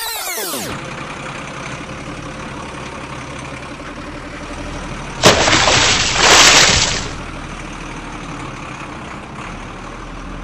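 Steady truck-engine running sound, with a sudden loud splash and crash about five seconds in that lasts about two seconds, as the toy truck plunges into the muddy puddle.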